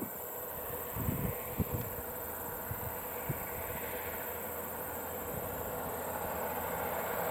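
Diesel engine of an approaching loaded logging truck, a steady rumble growing gradually louder as it nears. Low gusts of wind buffet the microphone.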